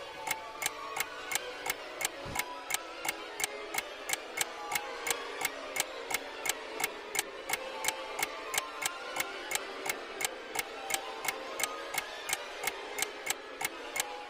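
Steady clock-like ticking, about three ticks a second, over soft held music notes: a time-passing effect on the soundtrack.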